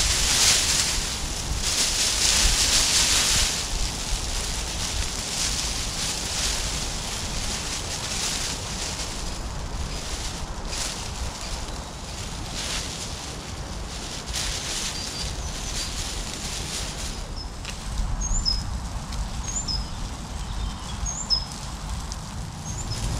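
Crinkling and rustling of foil space blankets being handled and stretched over a frame, densest in the first few seconds, with wind rumbling on the microphone. Near the end a small bird gives a few short chirps about a second apart.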